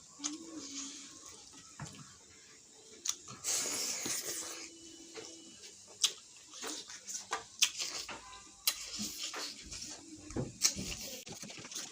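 Close-up eating sounds of a person eating spicy fish head: wet slurping and sucking, with sharp clicks from chewing. There is a longer, louder slurp about three and a half seconds in.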